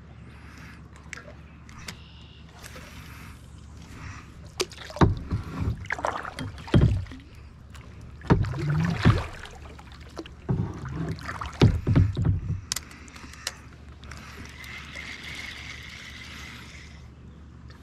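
Fishing boat on the water: a steady low hum throughout, with a cluster of loud knocks and thumps from about five to thirteen seconds in.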